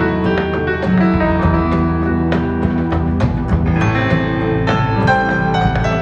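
Recorded music with piano and drums, played back through a tube amplifier.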